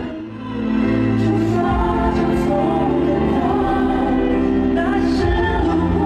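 Live duet of two male singers, one with a high, light voice, singing a slow ballad over band accompaniment.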